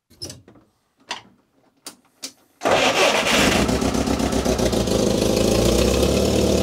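A few light clicks and knocks, then about two and a half seconds in the UAZ 452 Bukhanka's four-cylinder petrol engine starts abruptly and runs at a steady idle.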